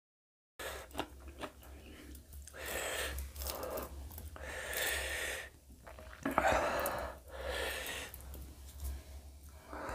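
A man's heavy, hissing breaths in and out through the mouth, several swells a second or so apart, the loudest about two thirds of the way in, from the burn of eating raw hot green chillies. The sound cuts in after a moment of dead silence at the start.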